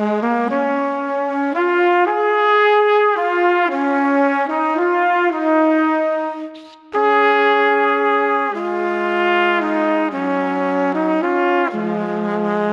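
Background music played by brass instruments, trumpet-led, holding sustained chords that change every second or so, with a brief break about halfway through.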